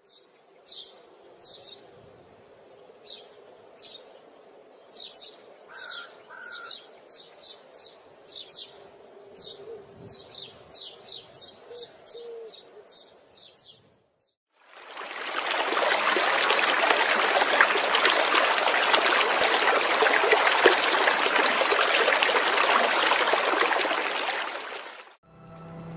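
A bird chirping a long series of short, high calls, about two a second, over faint background noise. About fourteen seconds in, this gives way suddenly to the loud, steady rush of a river running over rocks, which fades out near the end.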